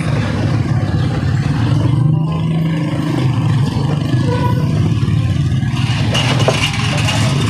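An engine running steadily with a low hum, with a few light metallic clinks near the end.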